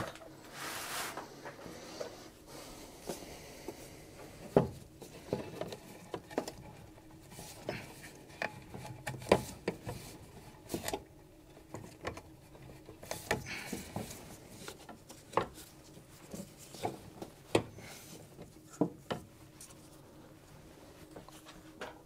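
Scattered light knocks, taps and rubbing as a new plastic coolant tank is handled and worked into position against the radiator. The sounds are irregular, a few seconds apart.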